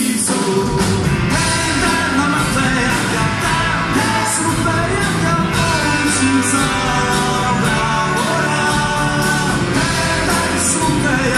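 Live rock band playing with singing: electric guitars, bass and a drum kit with steady cymbal beats, the bass and drums coming in right at the start. Heard from among the audience in a large, echoing concert hall.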